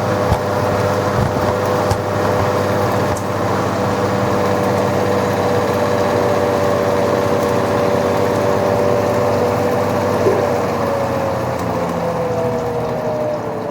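LG washing machine spinning hard with an unbalanced load: a steady motor whine over a rumble, with a few knocks in the first couple of seconds. Near the end the whine begins to fall as the drum slows.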